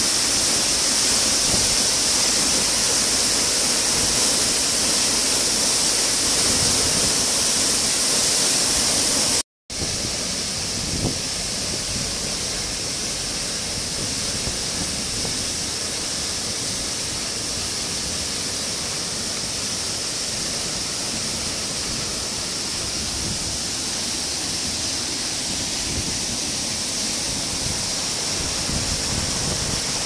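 Waterfall with a heavy flow, water pouring down onto rock in a steady rushing hiss. It cuts out for an instant about nine and a half seconds in, then continues a little quieter.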